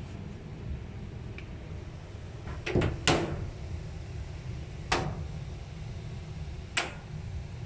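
Water dripping from a leaking air conditioner and landing on a hard surface: sharp drips about every two seconds, with a quick cluster of three a few seconds in, over a steady low hum.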